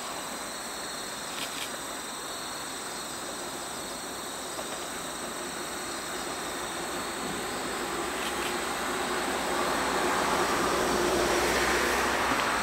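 Distant steam train hauled by two JNR steam locomotives, a C57 and a C56, approaching along the line, its running sound growing louder over the last few seconds. Insects drone steadily with high thin tones throughout.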